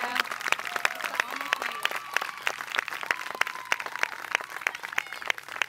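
Crowd applauding, many hands clapping at once, with a few voices calling out over it.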